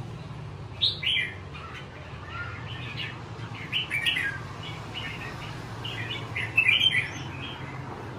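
Caged red-whiskered bulbuls singing in short, quick chirping phrases, the loudest about a second in and around seven seconds.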